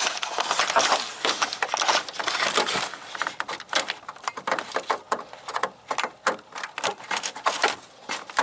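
Hands handling a wiring harness and its plastic connector, plugging it into a fog light: a dense run of clicks, taps and rustles, busiest in the first few seconds and more scattered after.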